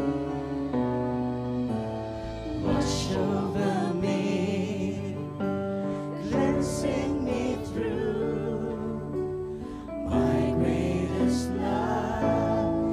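Live worship band and singers performing a slow worship ballad, the voices holding long wavering notes over the band.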